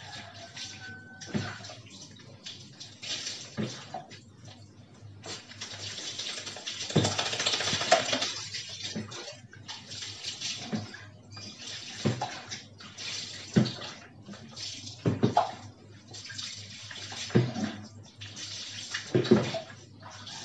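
Water poured from a plastic dipper over a wet dog to rinse off soap, splashing onto a tiled floor. One longer pour runs about a quarter of the way in, then short scoop-and-pour splashes follow every second or two.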